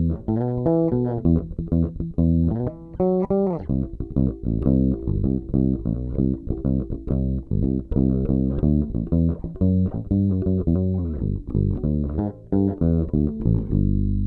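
Warwick Rockbass Streamer Standard five-string electric bass played fingerstyle through its bridge pickup alone, a continuous line of plucked notes.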